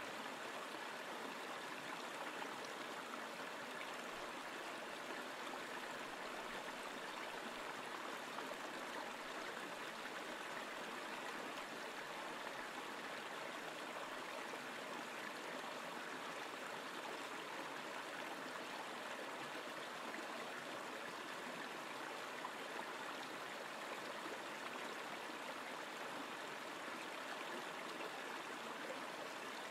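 Shallow river water rushing over rocks in a riffle: a steady, even wash of running water.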